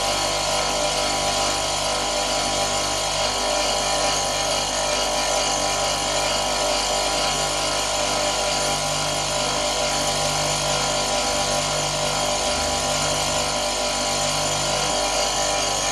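Bench grinder motor, converted to a wax lathe, running at steady speed with an even hum and several steady high tones, while a hand-held tool bores out the inside of a spinning wax ring blank.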